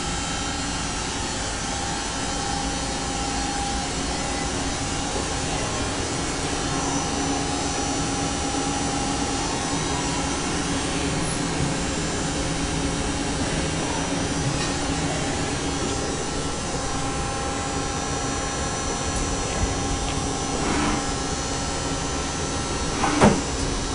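Hardinge T42 CNC lathe running with its live tool, a steady machine hum and whir with several held tones. A short sharp knock comes near the end.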